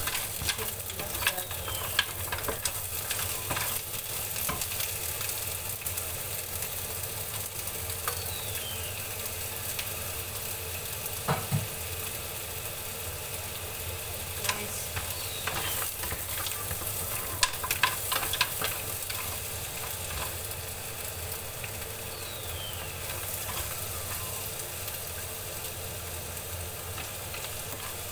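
Green mussels in their shells sizzling in oil in a frying pan, with scattered scrapes and clicks of a spatula turning them against the pan.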